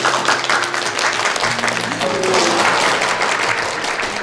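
A group of people applauding together, with background music of held notes playing underneath.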